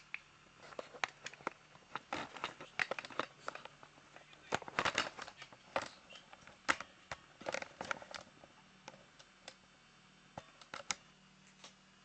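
Irregular clicks, taps and scraping of small hard objects being handled, busiest in the middle and thinning out near the end.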